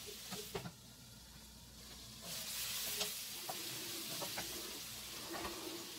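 Sausage and vegetables frying in a nonstick wok, sizzling, while a wooden spatula stirs them with light taps and scrapes against the pan. The sizzle grows louder about two seconds in.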